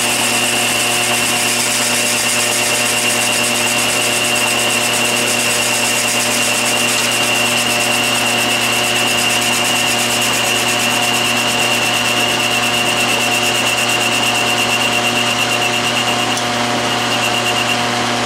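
12-inch Atlas/Craftsman metal lathe running with the power feed engaged while a boring bar cuts an internal taper in the spinning work: a steady motor and gear hum with a high whine over it that fades out near the end.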